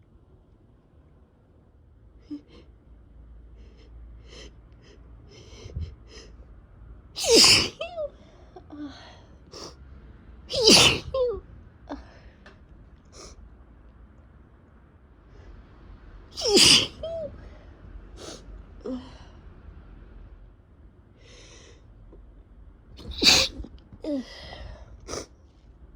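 A person with a cold sneezing four times, a few seconds apart, with smaller sniffs and breaths in between. These are messy sneezes from a runny, irritated nose.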